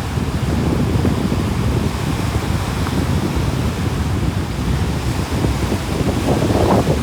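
Sea waves washing onto the shore in a steady rush, with wind rumbling on the microphone. The surf swells a little louder near the end.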